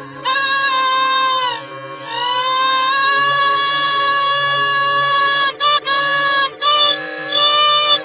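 Pingu's 'noot noot' beak-honk, drawn out into long held honks. There is one of about a second and a half, then one of about three and a half seconds that swoops up into its note and holds it, then a few shorter honks and a wavering one near the end.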